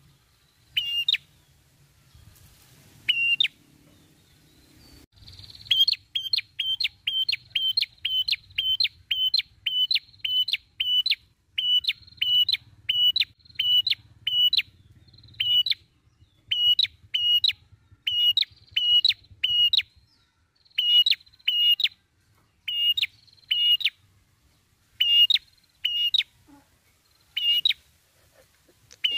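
Rufous-headed tailorbird (prenjak kepala merah) calling: one short, sharp, high note repeated over and over. A few spaced notes come first. From about six seconds in there is a fast even run of two to three notes a second, then shorter groups broken by pauses.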